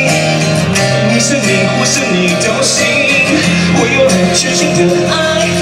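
A man singing a pop song live into a handheld microphone, holding long notes over an instrumental accompaniment.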